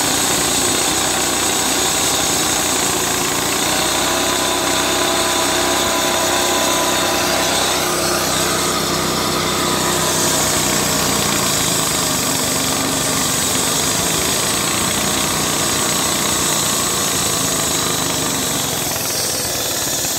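Diesel walk-behind concrete saw running steadily, its blade cutting through a concrete slab: a continuous engine drone under a high grinding of the blade in the concrete.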